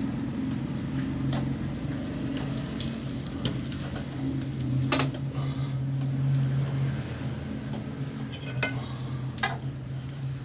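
Scattered light metallic clinks and taps of a screwdriver and loose parts while a window air conditioner is taken apart, with a sharper knock about five seconds in and a quick cluster of clicks near the end, over a steady low hum.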